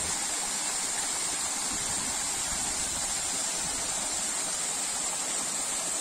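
Steady rush of a thin six-metre waterfall falling almost vertically onto rocks.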